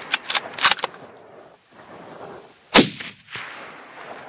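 A few sharp metallic clicks in the first second, then a single loud rifle shot about two and a half seconds in, with a short echoing tail.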